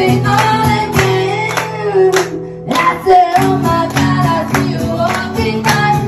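A woman singing live over a strummed acoustic guitar, with a brief break in the strumming about halfway through.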